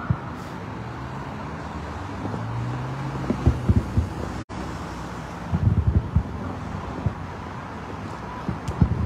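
Distant fireworks shells going off as clusters of low thuds, three times, over the steady hum of highway traffic and wind on the microphone. A vehicle's engine hum rises and passes in the first few seconds, and the sound cuts out for an instant midway.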